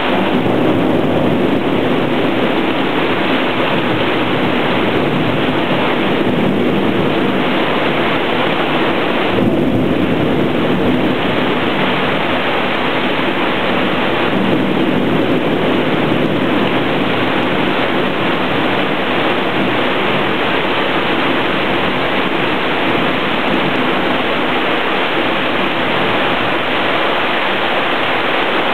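Torrential rain pouring down steadily in a thunderstorm, with a deep rumble of thunder underneath.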